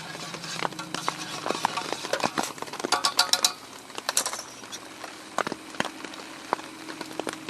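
Metal camp cookware clinking and rattling as it is handled, with a dense run of quick, ringing clinks about three seconds in.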